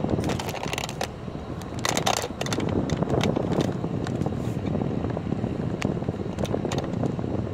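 Steady low rumble of a slowly moving car mixed with wind on the microphone, with scattered light clicks and rattles.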